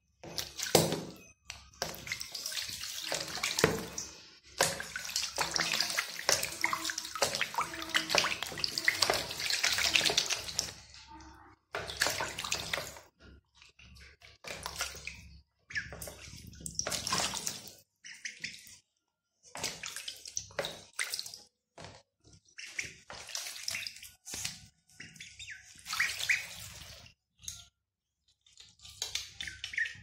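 Young ducks splashing and paddling in a plastic tub of water. The splashing comes in irregular bursts, heaviest through the first ten seconds or so, then in shorter spells with brief pauses between.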